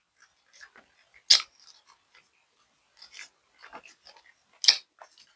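A person eating close to the microphone: scattered wet chewing clicks and lip smacks, with two sharp, louder smacks, one about a second in and one near the end.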